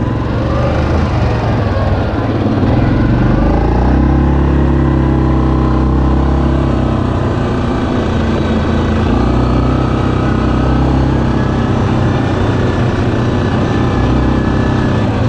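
2019 Yamaha Kodiak 700 ATV's single-cylinder engine running under way, its pitch rising about three seconds in as it picks up speed, then holding steady.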